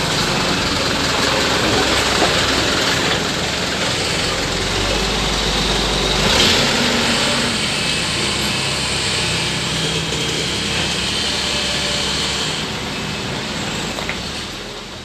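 Isuzu Giga heavy truck running, a steady mix of diesel engine and rumbling noise, with a brief louder swell about six and a half seconds in. It is presented as the odd noise of a truck with a broken rear wheel bolt.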